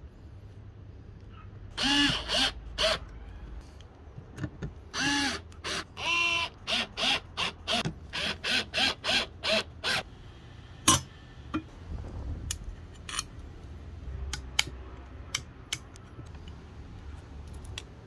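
Small cordless screwdriver motor run in short bursts, the pitch rising and falling with each squeeze of the trigger, at first in a few longer runs and then in quick pulses about two a second. After that come scattered light clicks and taps of parts being handled.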